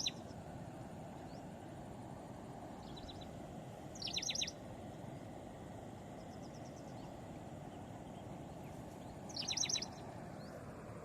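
A bird calling in short bursts of four or five quick high notes, three times with fainter calls between, over steady low outdoor background noise.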